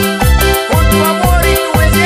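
An Ecuadorian música nacional song playing: low bass notes that slide downward, about two a second, under a melody with gliding notes.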